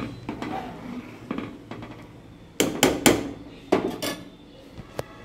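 Metal spoon stirring thick khichuri in a metal pot, knocking and clinking against the pot several times, with the loudest knocks clustered about two and a half to four seconds in.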